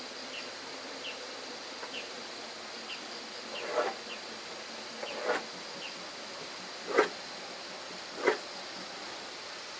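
Four short dull wooden knocks, a second or two apart, as a small wooden cat door is worked into its opening in a wooden door. Underneath, a steady high insect drone and faint short chirps repeating about once a second.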